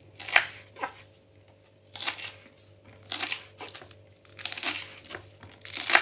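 Kitchen knife slicing through crisp spring onion stalks onto a wooden cutting board: a string of irregular crunching cuts, about seven in all, each ending in a knock on the board.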